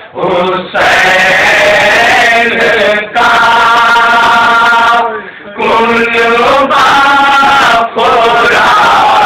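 Men chanting a nauha, a Shia lament, in long drawn-out sung phrases. The lead reciter's voice is the most prominent, and the phrases break for short pauses about every two to three seconds.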